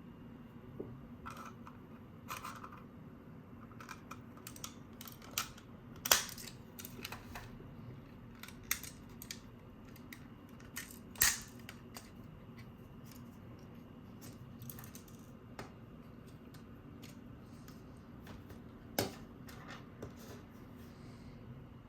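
Scattered small plastic clicks and snaps of a pry tool working around the shell seams of a Razer Viper V2 Pro mouse, prying the case open. The sharpest snaps come about six seconds in, about eleven seconds in, and again near the end.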